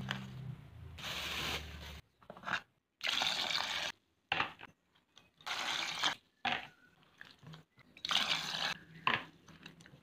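Water splashing and sloshing in a pot as tomatoes, shallots, garlic and red chilies are washed by hand, in several short bursts of about a second each, broken off abruptly between them.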